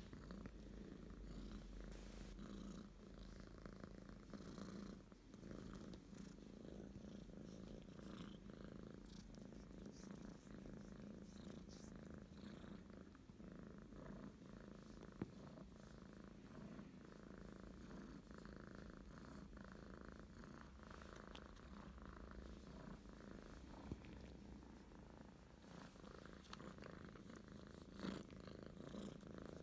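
Kitten purring softly and steadily while being stroked, with a few brief faint clicks scattered through.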